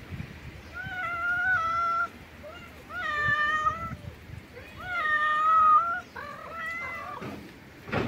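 Cat meowing: four long, drawn-out meows about two seconds apart, the third the loudest and the last shorter and broken.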